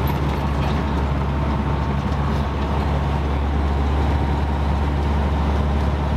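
Vehicle engine running steadily with road noise, heard from inside the cabin while driving on an unpaved dirt road: a constant low hum under an even rumble.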